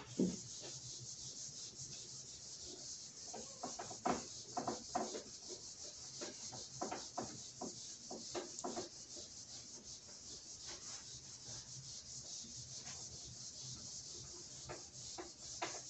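Whiteboard eraser rubbing across a whiteboard in repeated wiping strokes as the board is cleaned, with a run of firmer strokes in the middle.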